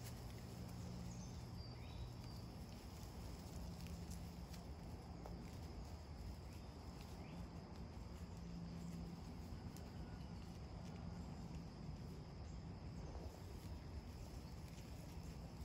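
Quiet woodland ambience: a steady high-pitched insect drone over a low hum, with faint scattered rustles in the leaf litter where nine-banded armadillos are rooting for grubs.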